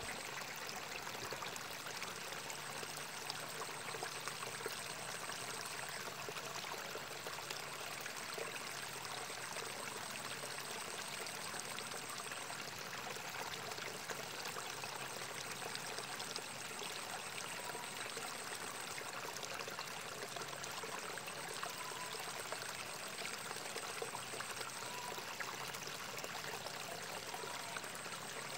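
Water trickling and running steadily in a small ditch between rice fields. A faint thin high whine breaks off and restarts about every six seconds.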